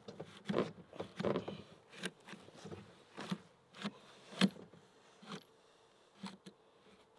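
The slide of a mud-fouled Glock 19 pistol being worked by hand to clear a spent case that failed to eject. It makes a string of uneven metallic clicks and knocks, the loudest about four and a half seconds in.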